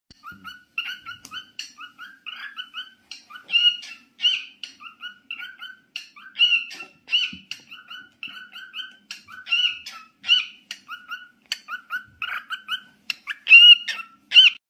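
Cockatiel chattering: a quick, unbroken string of short chirps and squawky calls, with a few louder calls scattered through it and the loudest near the end.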